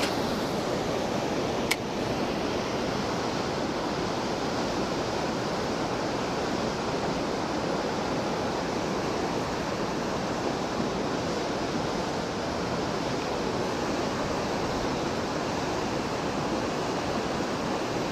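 Steady rush of flowing river water, with one sharp click about two seconds in.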